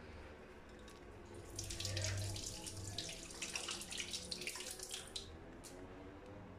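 Soft, moist potato dough squished and rubbed between the palms as it is rolled into a finger shape, a crackly rustling that starts about a second and a half in and stops about five seconds in, over a faint steady low hum.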